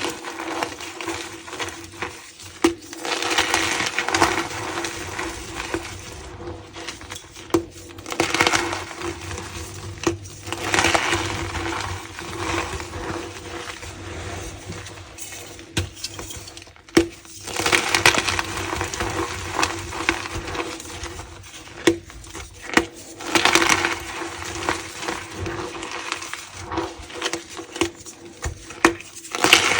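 Dyed gym chalk being crushed and squeezed by hand: crunching, crackling squeaks in repeated bursts a second or two long, with short pauses between.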